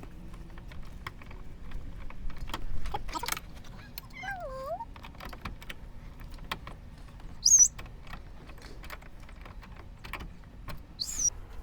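A 10mm ratchet clicking in short, irregular runs as bolts are turned. A few bird chirps come through: one dipping call about four seconds in, and short high chirps near the middle and the end.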